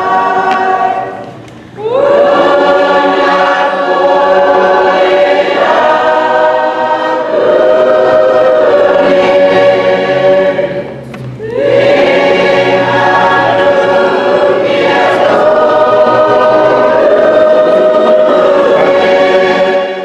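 Church choir singing a hymn in long held chords. The singing breaks off briefly twice, about two seconds in and around eleven seconds in, and each new phrase begins with the voices sliding up to the note.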